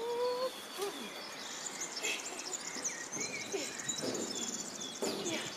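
Several small birds chirping and calling in quick, repeated short notes over steady outdoor background noise.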